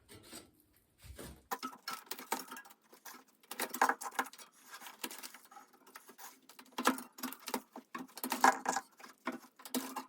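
A rotted, brittle gumwall bicycle tire being worked off its rim by hand: irregular crackling and scraping as the hardened rubber cracks and breaks up. The sounds start about a second and a half in and come in louder clusters.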